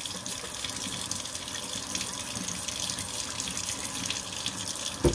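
Kitchen tap running in a steady stream into a stainless steel sink, with one sharp knock near the end.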